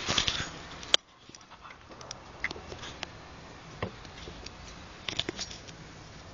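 Handheld camera handling noise: rustling for about a second that ends in a sharp click, then faint scattered ticks and taps while the camera is held still.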